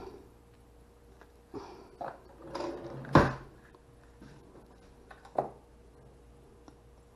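Handling noise as the cap of a glass sauce bottle is twisted loose with a rubber jar-opener pad: a few light knocks and rubbing, one loud knock about three seconds in and a smaller one a couple of seconds later.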